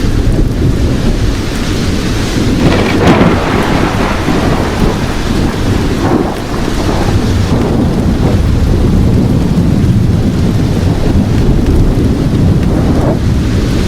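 Thunderstorm: steady heavy rain under a continuous low rumble of thunder, with louder swells of rain about three seconds in, around six seconds and near the end.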